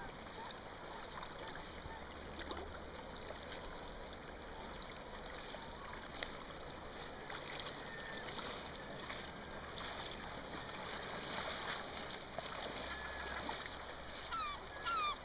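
Steady rush of a shallow river's flowing water, with low wind rumble on the microphone. Near the end, gulls give a run of short, falling calls, two or three a second.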